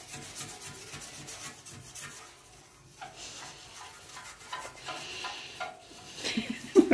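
Toothbrush scrubbing toothpaste over a glass pane in quick back-and-forth strokes, a soft repeated rubbing and scratching to lift old mildew off the glass.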